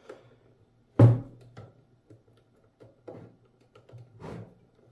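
A UPS battery being pushed back into its compartment in the plastic casing: one sharp knock about a second in, then several softer knocks and bumps as it is shifted into place.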